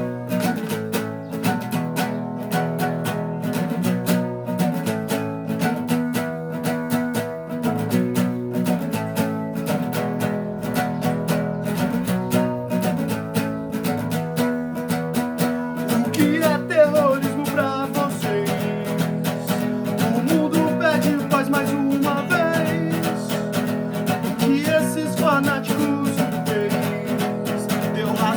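Instrumental song intro led by strummed guitar chords in a steady rhythm. About halfway through, a higher melody line with bending notes joins over the chords.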